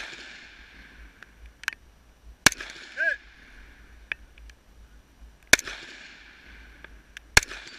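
Three rifle shots from an AR-pattern rifle fired close to the microphone, spaced about three and two seconds apart; after the first and last a short ringing ping follows about half a second later.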